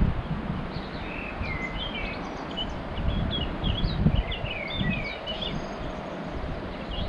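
Wind gusting on the microphone in an uneven low rumble, with small birds singing quick high chirps and twittering notes over it from about a second in until near the end.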